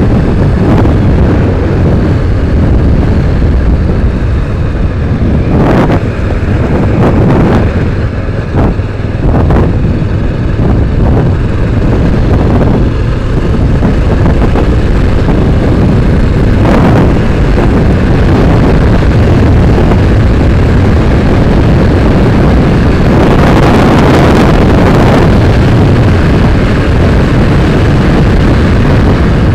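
Motorcycle under way: a steady, loud rush of wind on the microphone mixed with the engine running, with a few brief surges of noise.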